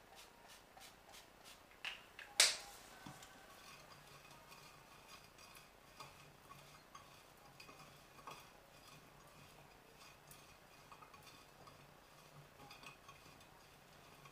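A few quick, even strokes from a handheld bottle over a dish, then one sharp knock as it is set down, about two and a half seconds in. After that, hands toss raw potato chunks in a glass baking dish, with soft clicks and knocks of potato against glass.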